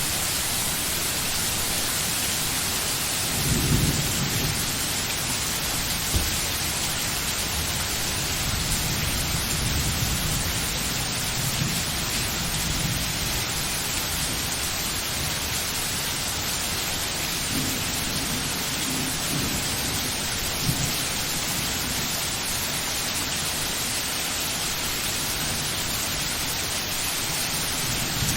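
Steady rain falling, an even hiss, with low rumbles swelling now and then, the strongest about four seconds in and again toward the end of the second third, and a couple of single sharp knocks.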